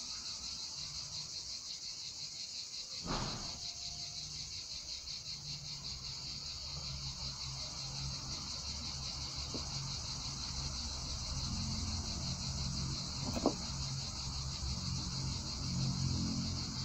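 A steady high-pitched chorus of insects chirping, with two small clicks from the handling of metal fishing tackle, about three seconds in and again near the end. A low hum grows louder in the second half.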